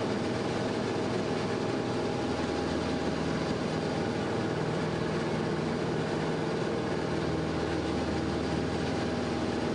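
Piston engine and propeller of a Grumman single-engine light aircraft running steadily in cruise, a constant drone heard from inside the cabin.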